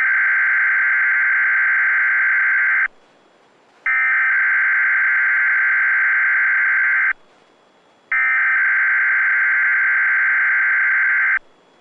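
Weatheradio Canada SAME alert header: three bursts of digital data tones, each about three seconds long with about a second's gap between them. They are sent to activate alert-equipped weather radios for the required weekly test.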